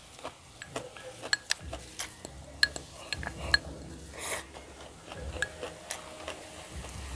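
Chopsticks clicking and scraping against a ceramic rice bowl while eating, many short irregular clicks, with a brief louder noisy rush a little past four seconds in.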